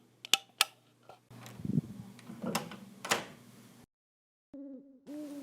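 A door being handled and shut, preceded by two sharp clicks, with several knocks and rattles along the way. Near the end there is a short pitched, gliding sound.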